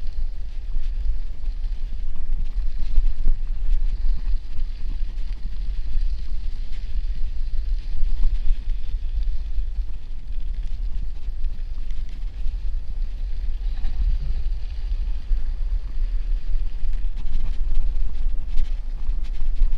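Bicycle tyres rolling over a snow-covered path, with steady wind rumble on the microphone from the riding speed.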